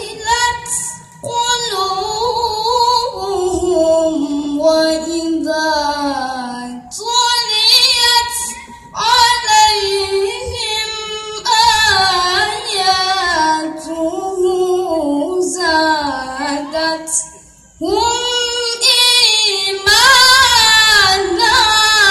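A boy's voice reciting the Quran in melodic tilawah style: long, drawn-out, ornamented phrases with pitch sliding up and down, broken by several short pauses for breath.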